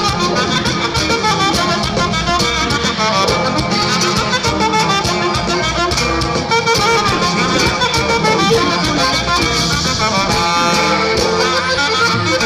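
Norteño band music in an instrumental break: saxophone and accordion carry the melody over bass and a steady dance beat.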